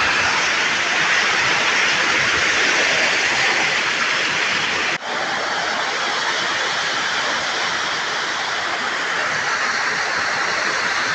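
Heavy rain falling: a steady, loud hiss, with a short break about five seconds in.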